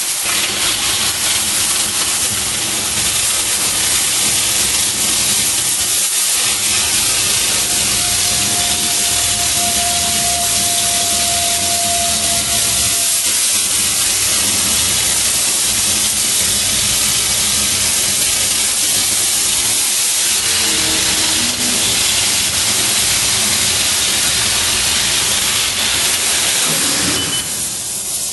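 Oxy-propane cutting torch (ESAB propane Cooljet) on a SAF Oxytome CNC cutting machine, hissing steadily as its oxygen jet cuts through steel plate. The hiss dips slightly near the end.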